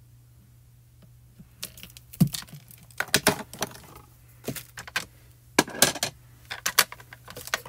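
Light, irregular clicks and taps from a heavy clear acrylic stamp block being handled and set down on a card panel over a craft mat, starting about two seconds in.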